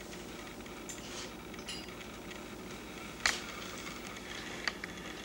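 A person chewing a mouthful of salad with lettuce and celery: a few soft crunches, a sharp click about three seconds in and a smaller one near the end, over a steady low room hum.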